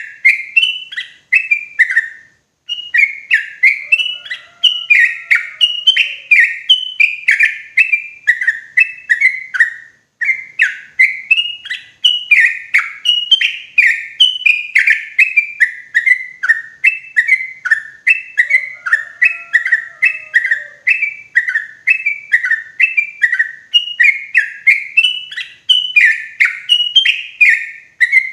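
Yellow-vented bulbul (trucukan) singing a loud, clear run of short, bright notes, each sliding downward, about three a second. It pauses briefly about two seconds in and again near ten seconds. This is the kind of song played as a lure (pancingan) to draw wild trucukan.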